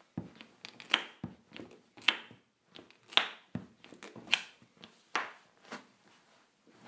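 Nike Air Max 2013 sneakers stepping and scuffing on a hardwood floor: a sharp step or scuff about once a second, some with a dull heel thud.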